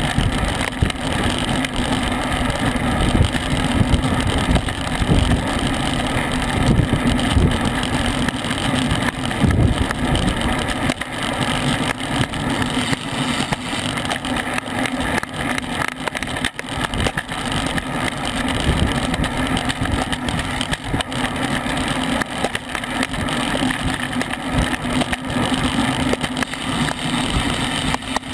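Wind buffeting the microphone of a bicycle-mounted action camera at about 20 mph, a steady loud rush with gusty low rumble, mixed with road and tyre hum from the racing bikes.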